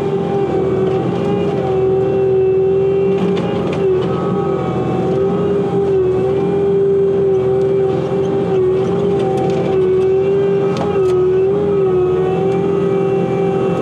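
Bobcat T86 compact track loader's diesel engine running at high throttle with a loud, steady hydraulic whine. The whine sags in pitch briefly a couple of times as the root grapple is worked under load.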